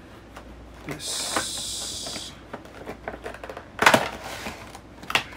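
Cardboard and plastic packaging of a boxed Funko Pop vinyl figure being handled as the figure is taken out: a sliding hiss for about a second, then small clicks and rustles, with a sharp knock a little under four seconds in and another just after five.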